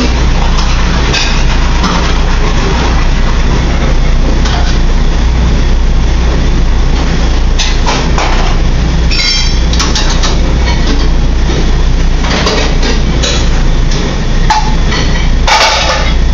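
Commercial kitchen noise: a loud, steady rumble under the range hood, with clinks and clatters of metal pans and utensils, and a few louder metal clangs about nine seconds in and near the end.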